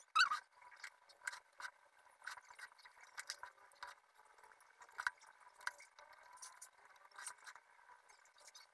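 Snap-off craft knife blade cutting a paper stencil: faint, irregular small ticks and scratches, loudest just after the start.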